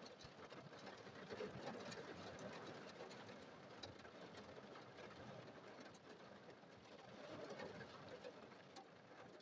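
Heavy rain on the car, heard faintly from inside the cabin as a steady noise, with a couple of soft low swells.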